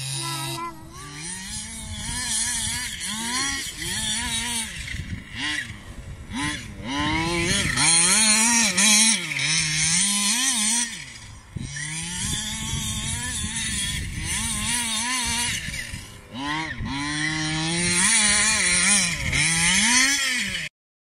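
26cc two-stroke petrol engine of a 1:5 scale RC buggy revving up and down over and over as it is driven, its pitch rising and falling every second or two. The engine cuts off suddenly near the end.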